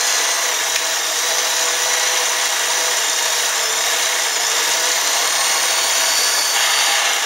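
Sears Kenmore 158-series sewing machine running fast and steady with its needle declutched, winding a bobbin: an even motor whir with high whining tones.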